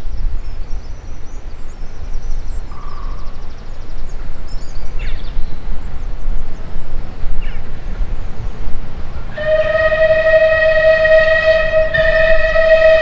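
Steam locomotive whistle sounding one long, steady note from about nine seconds in, briefly broken near twelve seconds and then held on, over a low rumble of the approaching train.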